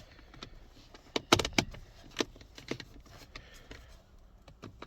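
Scattered sharp metallic clicks and knocks of a hand tool working the screw behind a steering wheel, with a quick cluster of them a little over a second in.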